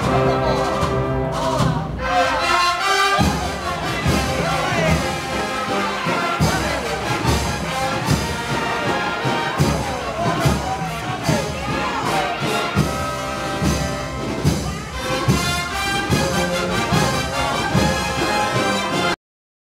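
Andalusian processional brass-and-percussion band (agrupación musical) playing a march, with trumpets and trombones over a steady drum beat. The music cuts off suddenly near the end.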